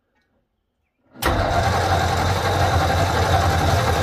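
Starter motor of a 1948 Ford F5 cranking the engine, cutting in suddenly about a second in. The engine turns over but does not fire: the newly wired starter circuit works.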